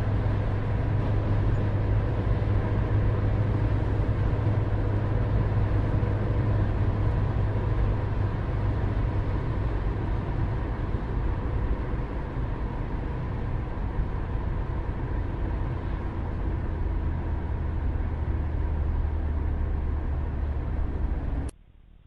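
Steady low rumble with a constant deep hum and faint steady tones, cutting off abruptly near the end.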